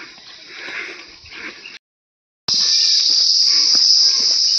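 Insect chorus: a loud, steady, high-pitched buzz that comes in abruptly a little past halfway, after a brief silent gap. Before it only a quieter outdoor background with faint taps.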